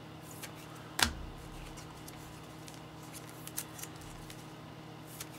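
Trading cards and their packaging being handled on a tabletop: a few small clicks and ticks, with one sharp knock about a second in.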